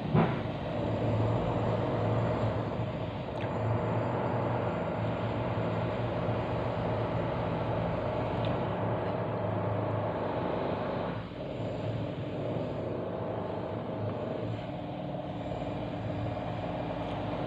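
Steady mechanical drone of a heavy engine running outside, from works that have been going on for hours, with a brief dip about eleven seconds in.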